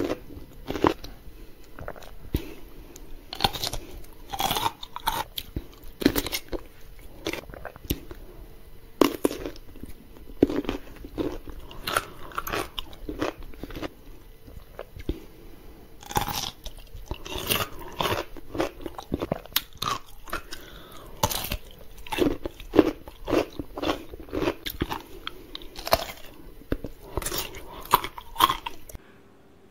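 Crisp bites and wet, crunchy chewing of whole pickled cucumbers, close to a microphone, with many irregular crunches throughout; the sound cuts off abruptly near the end.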